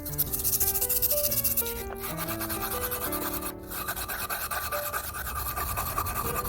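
Rapid rubbing strokes of hand-polishing a rusty adjustable wrench, heard under background music with a simple melody.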